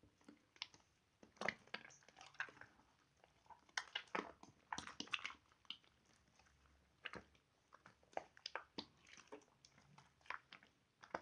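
Slime being squeezed and stretched by hand, making faint, irregular sticky clicks and crackles in quick clusters.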